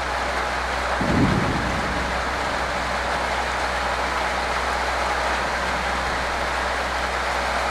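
Steady rain falling on corrugated metal carport roofs and a wet car park, with a brief low rumble about a second in.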